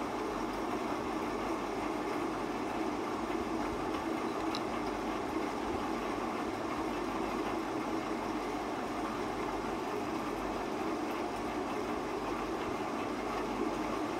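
A steady, even hum and hiss with no distinct events.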